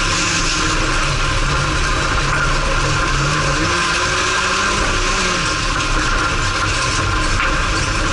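Dirt-track race car's engine running hard, heard from inside the stripped cabin, its note rising and falling with the throttle, over a steady rush of tyre and track noise.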